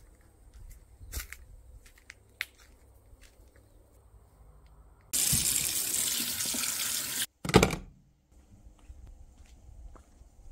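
Tap water running hard into a sink onto a pile of paint brushes for about two seconds, cutting off suddenly. A short, louder burst follows straight after, and a few faint clicks come before it.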